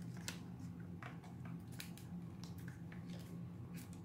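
A DJI Osmo Mobile 3 smartphone gimbal being folded up and handled, with a scatter of light plastic clicks and knocks over a steady low hum.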